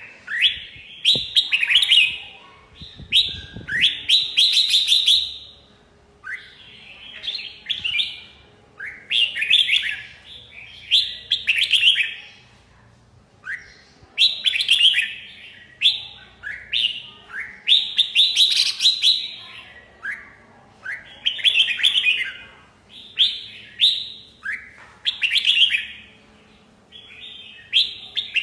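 Red-whiskered bulbul singing: short, loud phrases of quick rising and falling whistled notes, repeated about every two seconds with brief pauses between.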